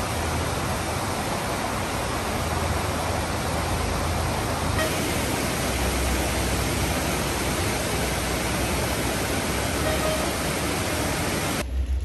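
Heavy rain pouring down, a steady even hiss that cuts off abruptly near the end.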